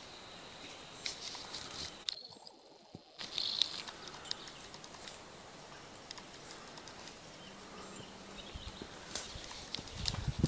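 Quiet woodland ambience with scattered short, high bird chirps. The sound briefly drops out about two seconds in, and a few low thumps come near the end.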